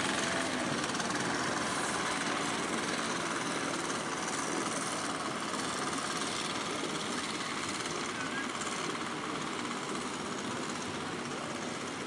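Outrigger fishing boat's engine running steadily, mixed with the rush of breaking surf.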